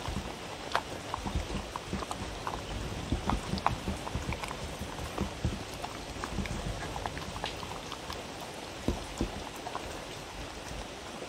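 A dog eating from a wooden bowl: a run of irregular wet smacks and crunching clicks as it chews and laps up chopped watermelon, carrot, egg and meat.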